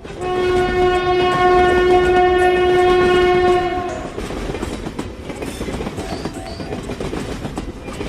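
Train horn sounding one long steady blast of about three and a half seconds over the rumble of a train running on the rails. The rumble and wheel clatter carry on after the horn stops.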